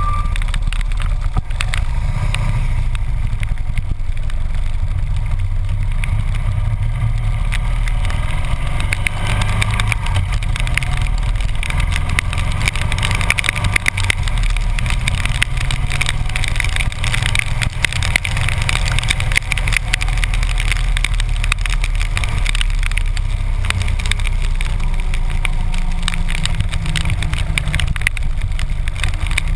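Harley-Davidson V-twin engine running at a steady cruise with low wind rumble, while raindrops tick against the camera housing as many small clicks.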